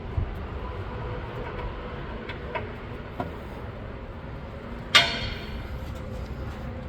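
A single sharp clang about five seconds in, ringing and fading over about a second, over a steady low rumble, with a few light clicks before it.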